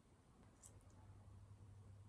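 Near silence: a couple of faint light clicks of a metal fork and spoon against a ceramic plate a little over half a second in, over a low steady hum.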